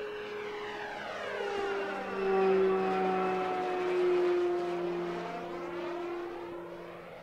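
Electric RC P-47 Thunderbolt warbird on a 6S battery with a 12x8 propeller flying past, its motor and propeller whining. The sound grows louder to a peak two to four seconds in, its pitch sinking slightly as it passes, then fades.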